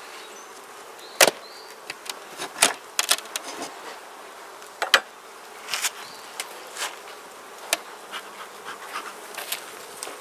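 Honeybees buzzing steadily around an open Langstroth hive, with sharp clicks and knocks scattered through, the loudest a little over a second in and about five seconds in.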